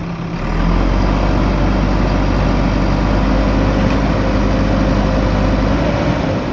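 Diesel engine of a JCB backhoe loader running. It picks up speed and gets louder about half a second in, then runs steadily.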